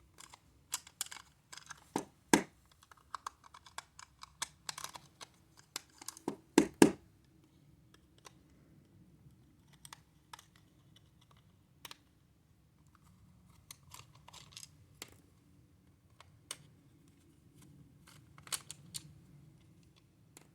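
Small screwdriver with a triangular security bit working the screws out of a hard plastic toy's back: irregular light clicks and taps of the bit, screws and plastic casing, with a louder knock about two seconds in and a pair of louder knocks around seven seconds in.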